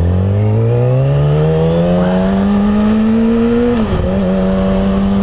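Yamaha R6's 600cc inline-four engine pulling hard: the revs climb steadily for nearly four seconds, drop sharply at an upshift, then hold steady in the next gear.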